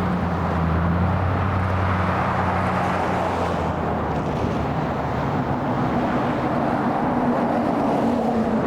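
Steady vehicle noise with a low engine hum that fades after about four seconds, as a motor vehicle runs nearby.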